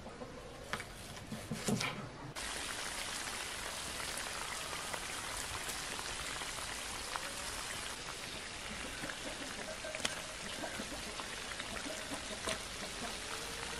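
A knife slicing through red onion on a wooden board, a few sharp strokes; then, about two and a half seconds in, goose pieces sizzling steadily in a large pan, with a few light knocks toward the end.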